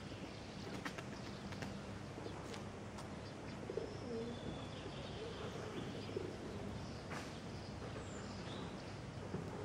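Faint outdoor ambience with birds chirping in short high notes and a pigeon cooing low a few seconds in.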